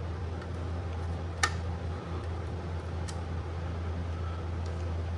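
Room air conditioner running with a steady low hum, having just kicked on. Two small sharp clicks cut through it, one about a second and a half in and another about three seconds in.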